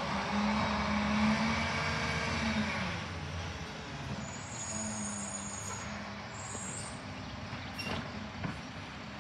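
Mack LR side-loader garbage truck's engine running as the truck drives off along the street. The engine note is strongest in the first three seconds, then eases.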